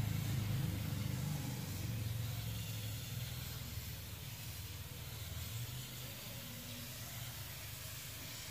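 Aerosol spray can hissing as activator is sprayed onto hydro-dip film floating on water, over a low rumble that fades during the first half.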